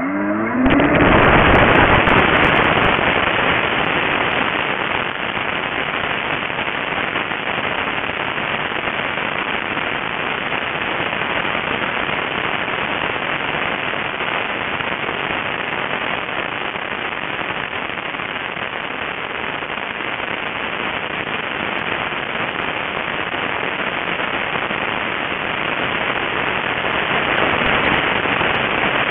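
RC model airplane's motor and propeller heard through its onboard camera, spinning up in the first second and then running at full power through takeoff and climb. The prop and rushing air give a loud, steady wash of noise.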